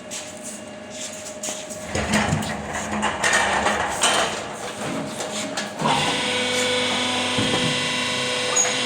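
Scrap baling press at work: irregular knocking, rubbing and scraping of machine parts, then about six seconds in a motor starts a steady hum that keeps running.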